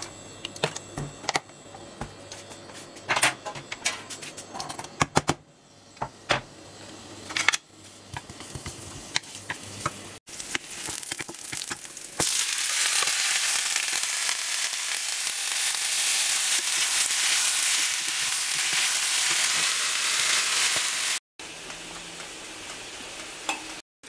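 Green beans going into hot oil in a frying pan and sizzling loudly for several seconds, starting about halfway through and cutting off suddenly near the end. Before that, scattered light clicks and knocks of pan and utensils.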